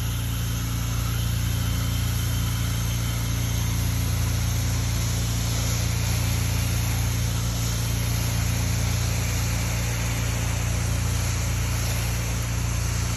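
Pressure washer's engine running steadily under a constant hiss of spray while cleaning solution is applied to the house siding.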